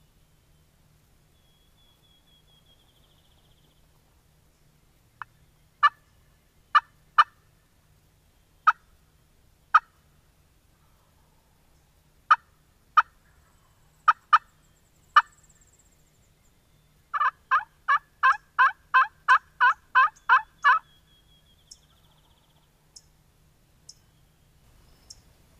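Turkey clucks and yelps: about ten sharp single clucks spaced irregularly, then a quick, even run of about eleven yelps, about three a second, a little past the middle.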